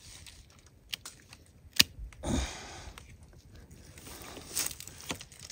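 Hand pruning shears snipping apple tree shoots: one sharp snip a little under two seconds in, with lighter clicks and a brief rustle of the branches around it.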